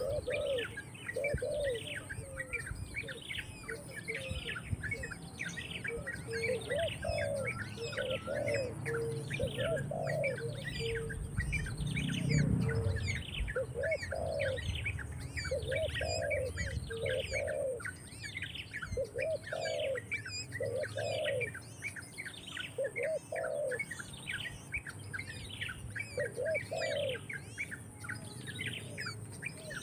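Birds calling: a steady run of high, falling chirps, about one and a half a second, over low cooing notes in short groups. A low rumble rises briefly about twelve seconds in.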